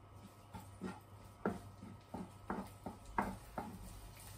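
Wooden spatula knocking and scraping against a frying pan in a quick, uneven run of taps, about three to four a second, as red curry paste is stir-fried in hot oil.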